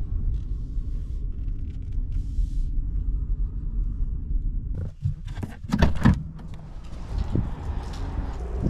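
Low, steady engine and road rumble of a Ram pickup heard from inside the cab as it rolls in slowly. About five seconds in come several loud, sharp knocks and clatters, and then a steady outdoor hiss with some low hum.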